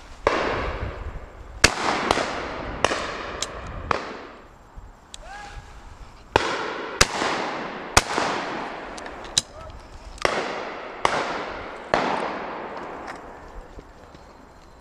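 Repeated 12-bore shotgun fire from a line of guns: more than a dozen sharp shots, some near and some distant, each followed by a long echoing tail through the wooded valley. The loudest, nearest shots come about two seconds and eight seconds in.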